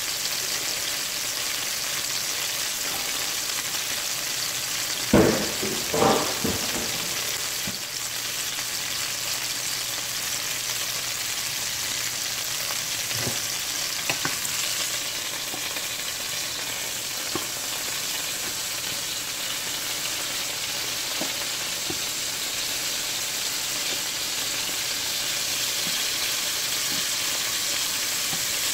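Chicken pieces browning in butter and olive oil in a stainless steel pan, sizzling steadily. A couple of sharp metal clinks come about five and six seconds in, and a few lighter ones later as tongs turn the pieces.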